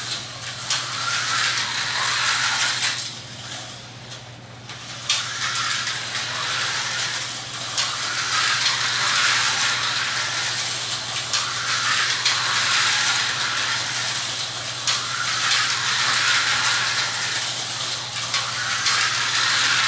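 Tyco HO slot cars racing: their small electric motors whirring and the cars buzzing along the track rails, swelling and fading every few seconds as they lap past, with a steady low hum underneath.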